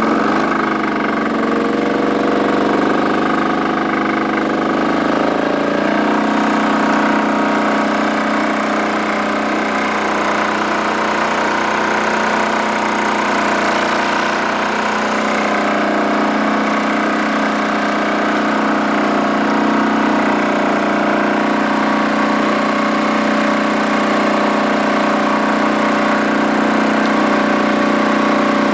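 Holder A12 tractor's air-cooled single-cylinder two-stroke Sachs 600 diesel running steadily under load while cultivating. Its pitch rises slightly about six seconds in, then holds.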